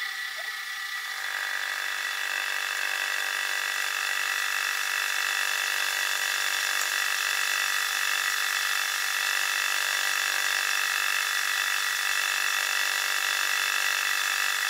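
Milling machine running during thread milling, its spindle spinning a small single-point thread-milling cutter while a three-jaw chuck slowly turns the threaded work. It makes a steady high whine that holds unchanged throughout.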